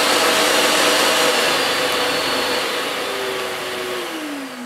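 Hoover Silent Energy cylinder vacuum cleaner's 2200-watt motor running at full turbo power, a steady smooth whine over a rush of air. Near the end it is switched off and winds down, its pitch falling.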